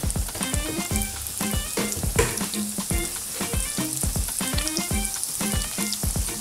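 Falafel balls sizzling in hot frying oil as more are dropped into the pan, a steady crackling hiss, with background music keeping a regular beat underneath.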